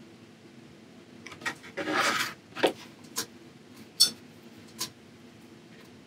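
A sheet of gessoed watercolour paper slid and turned on a tabletop with a brief scraping rustle about two seconds in, followed by a few sharp clicks and taps of handling, the loudest about four seconds in.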